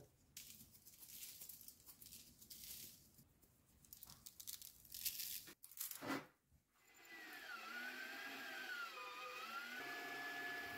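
Thin aluminium foil tray crinkling and crackling as it is handled. After a break, a whine that dips and rises in pitch and then holds steady.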